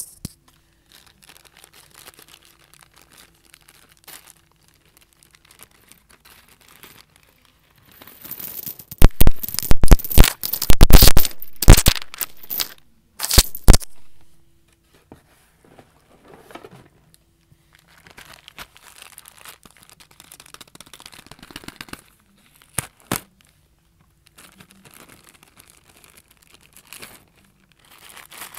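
Plastic packaging crinkling and tearing close to the microphone: faint rustling at first, then a loud burst of crackling and tearing for about five seconds in the middle, then quieter crinkling with two sharp clicks.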